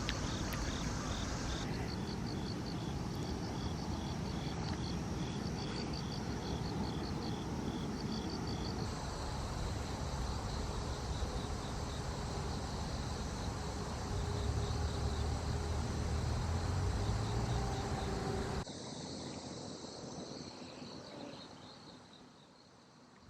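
Insects chirping in rapid, evenly repeated pulses over a steady low rumble. The sound shifts abruptly a couple of times and drops much quieter near the end.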